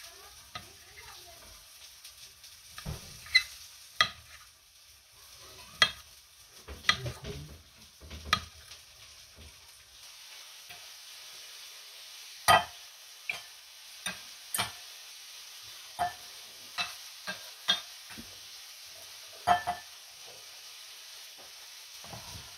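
Kitchen knife chopping tomato on a granite cutting board: irregular sharp taps of the steel blade on the stone, a few of them loud, over a faint steady hiss.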